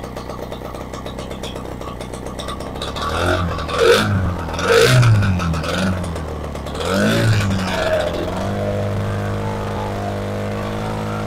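Rotax 185 two-stroke engine running at a low idle, then revved up three times between about three and eight seconds in, the pitch climbing and dropping each time, before it settles into steady running at a higher speed. Picked up through a noise-deadening microphone, which makes the engine sound strange.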